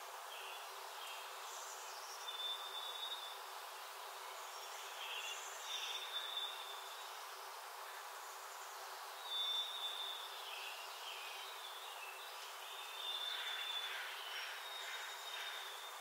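Small songbirds singing: a clear, high whistled note held for about half a second comes back every few seconds, with short chirps and twitters in between, over a steady background hiss.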